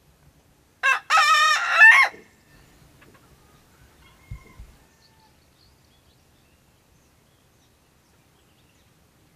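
Rooster crowing once about a second in: a short opening note, then a longer wavering call that bends upward at its end.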